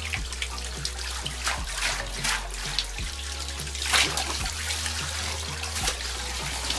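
Shower water running through a bunch of water balloons into a bathtub full of floating balloons, a steady splashing trickle with a few short sharp splashes as balloons drop into the water.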